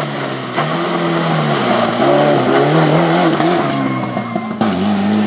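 Rally car engine revving hard, its pitch rising and falling with the throttle. The sound drops sharply about half a second in and again near the end, as at gear changes or throttle lifts.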